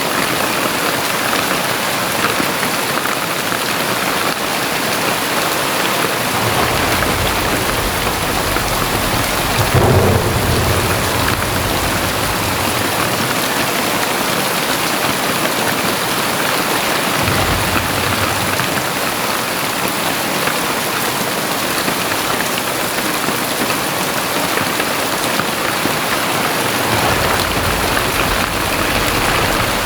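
Very heavy rain pouring steadily, a dense hiss of drops on surfaces. Deep low rumbles swell in a few times, the strongest about ten seconds in and another near the end.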